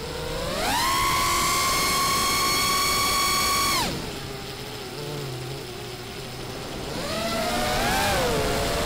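FPV quadcopter's brushless motors whining, heard through the drone's onboard camera. The pitch climbs sharply within the first second, holds steady for about three seconds and drops off abruptly. From about seven seconds in it swoops up and down again.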